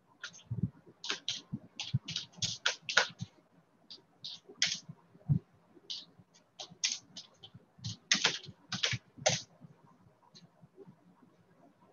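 Typing on a computer keyboard: irregular runs of short key clicks that stop about three-quarters of the way through, with one stray click after.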